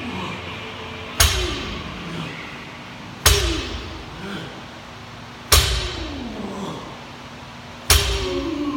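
A 225 lb barbell with rubber bumper plates hitting the gym floor four times, about every two seconds, as each deadlift rep is lowered. Each is a sharp thud with a short fade after it.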